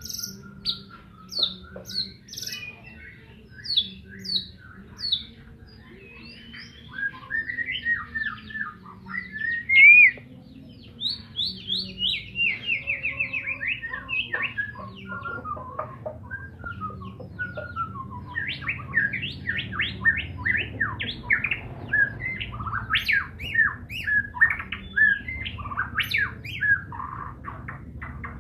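White-rumped shama (murai batu) singing a long, varied song of quick chirps and whistles: a loud rising whistle about a third of the way in, then a fast trill, and a dense run of quick sharp notes in the last third.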